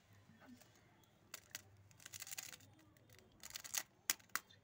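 Small plastic sauce and seasoning sachets being handled and torn open: a scatter of short crinkles and sharp clicks, busiest around the middle and again near the end.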